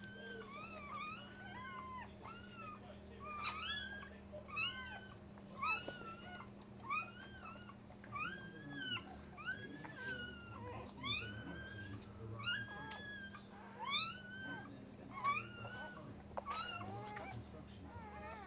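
Newborn Dogue de Bordeaux puppy crying: a string of short, high, mewing squeals, about one a second, each rising then falling in pitch.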